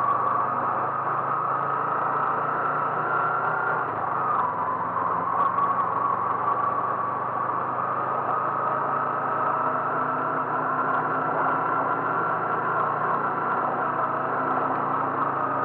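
A car engine running steadily with a low hum and a higher, slightly wavering whine above it.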